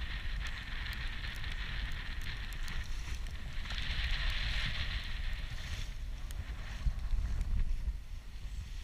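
Gale-force wind buffeting the microphone with a ragged low rumble, over a higher hiss that swells for a second or so about four seconds in. There are faint scattered ticks, and a stronger gust near the end.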